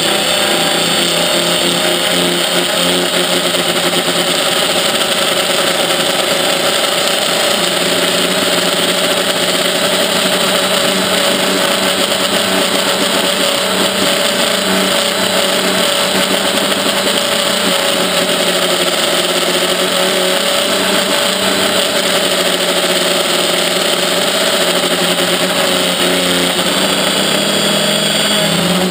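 Electric motors and propellers of a Quadrixette 30 FPV quadcopter, recorded by the GoPro riding on it: a loud, steady multi-pitched whine whose pitch drifts up and down a little as the throttle changes, with the most noticeable shift near the end.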